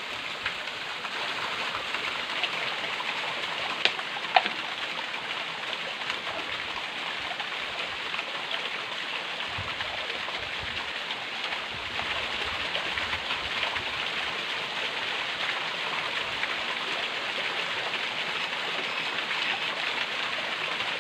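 Steady hiss of running stream water, with two brief sharp clicks about four seconds in.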